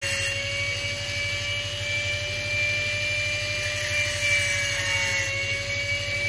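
Angle grinder running steadily under load, its cut-off disc cutting through a steel motorcycle handlebar clamp, with a constant high whine over a rasping hiss.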